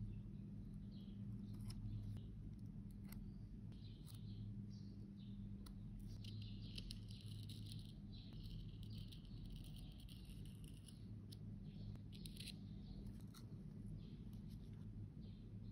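Metal spatula spreading and smoothing soft cream makeup in a compact pan: faint soft scrapes, the longest stretch in the middle, with small clicks where the blade touches the metal pan edge. A steady low hum runs underneath.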